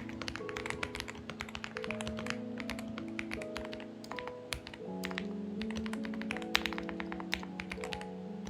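Typing on a Xinmeng X98 mechanical keyboard: quick, irregular keystroke clicks in bursts, with a few louder key strikes. Background music of slow, held notes plays underneath.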